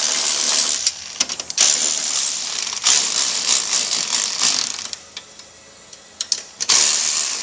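Power ratchet, most likely an air ratchet, running in bursts of a couple of seconds with a hiss and fine clicking, snugging the diffuser's mounting bolts partway, not fully tight. It pauses briefly twice, stops for over a second about two-thirds through, then runs again near the end.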